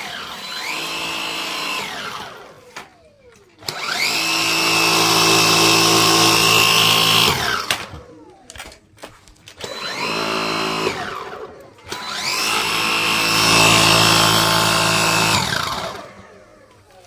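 Dyson vacuum cleaner motor switched on and off four times: each run winds up to a steady high whine and winds down when released. The two middle runs are short and the second and fourth last about three to four seconds.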